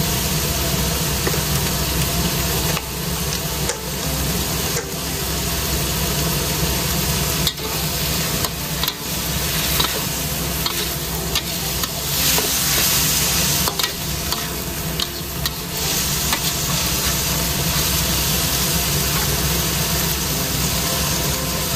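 A metal spatula scrapes and stirs chicken and petai beans around a large wok, with scattered clicks against the pan. The sauce sizzles steadily over a low hum underneath.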